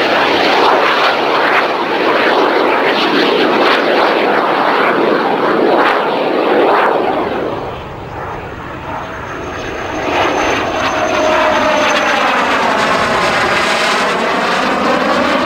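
Soko Galeb jet trainer's Rolls-Royce Viper turbojet flying past: a loud jet rush that eases off about halfway through, then builds again with a thin high whine and a sweeping, rising-and-falling tone as the jet makes another pass.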